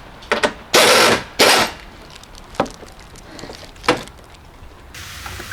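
Cordless drill/driver run in short bursts, tightening the fasteners on a refitted bumper cover, followed by two sharp clicks. A soft chime tune comes in near the end.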